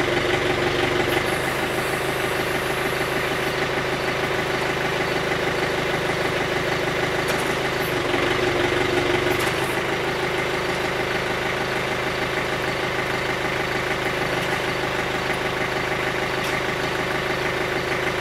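Diesel engine of a John Deere compact backhoe-loader idling steadily, its note lifting briefly about eight seconds in.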